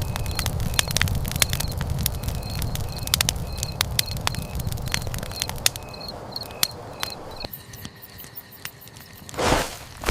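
Night ambience: a campfire crackling with many sharp pops, and crickets chirping in an even rhythm. The fire sound stops about seven seconds in, leaving the crickets, and a brief louder rustling swell comes near the end.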